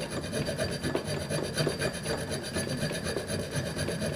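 Hand file scraping metal on a Glock 23 pistol's slide in quick repeated strokes, removing metal to stop the slide from going forward on its own when a full magazine is slammed in.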